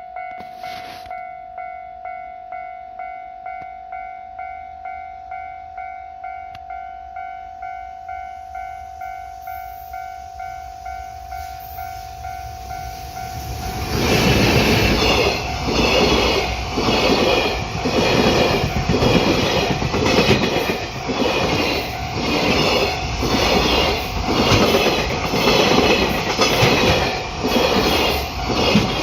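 Japanese level-crossing warning bell ringing in a steady electronic 'kan-kan', about two strokes a second. About halfway through, a train passes over the crossing and its wheels clatter rhythmically over the rail joints, louder than the bell, which keeps ringing underneath.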